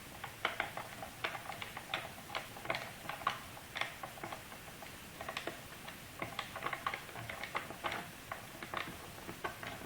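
Screwdriver backing a small screw out of a laptop's bottom case: a run of light, irregular clicks and ticks, several a second.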